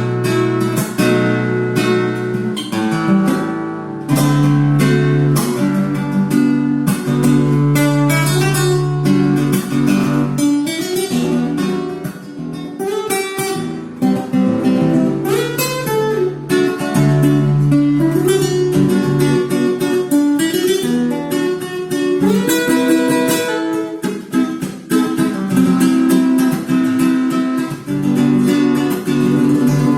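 Alhambra 7FC CW E2 flamenco guitar played solo, strummed chords mixed with plucked single-note runs.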